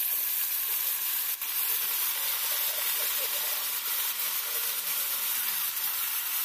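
Raw pork pieces frying in hot oil in a steel kadai, a loud steady sizzle, with one sharp click about a second and a half in.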